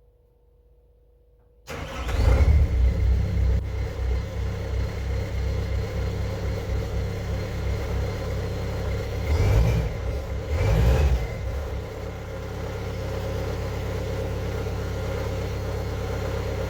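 Skid steer's diesel engine starting abruptly about two seconds in and running, swelling briefly twice in the middle, then settling to a steady idle.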